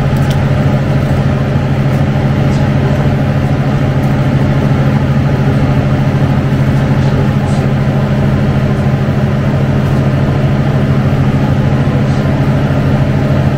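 Steady, loud low mechanical hum of a running motor, unbroken throughout.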